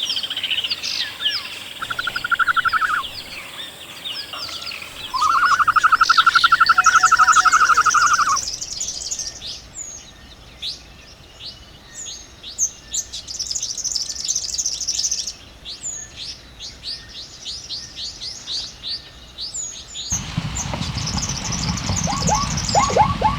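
Wild birds calling: a loud, fast trill for about three seconds, then many quick, high, downward-sweeping chirps repeated over and over. About 20 seconds in, the background changes abruptly to a low, noisy rumble under further chirps.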